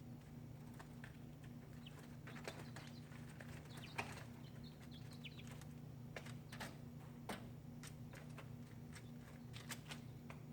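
Chickens moving about, with scattered sharp ticks and a few brief, soft high chirps, over a steady low hum.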